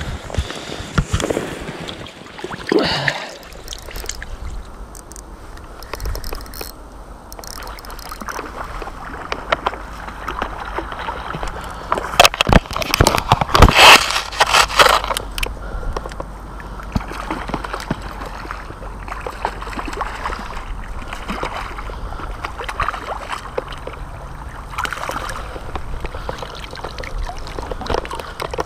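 River water sloshing and gurgling over a steady low rumble. About twelve to fifteen seconds in, a hooked brown trout splashes and thrashes at the surface, the loudest part.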